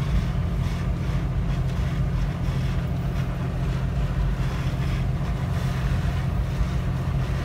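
Jeep Wrangler driving along wet beach sand at the water's edge: a steady engine and tyre drone with wind noise, heard from inside the cab.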